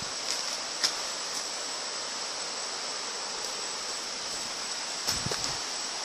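Steady rush of a jungle river, with a constant high insect drone over it. A couple of small clicks come early, and a few soft low thumps of the camera being handled come about five seconds in.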